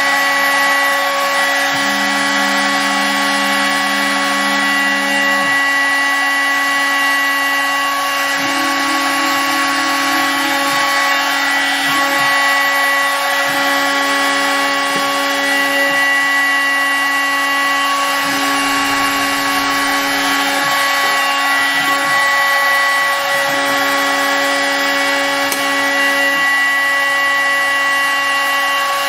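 CNC router spindle with an end mill cutting a shallow square pocket in MDF, a steady high spindle whine over the cutting noise. Lower motor tones start and stop every few seconds as the cutter moves along each side of the square. This is a square-pattern test cut for checking spindle tram.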